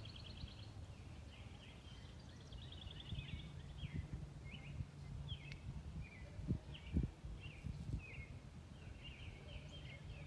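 Small birds calling: a string of short chirps and quick trilled notes, one after another, over a steady low rumble. A few dull low thumps near the middle are the loudest sounds.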